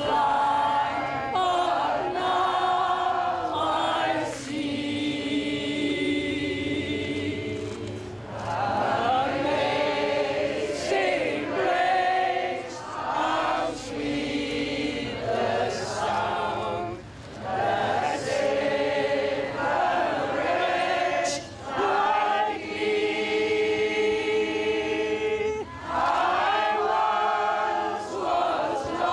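A choir singing slow, sustained chords in phrases a few seconds long, with short breaks between them.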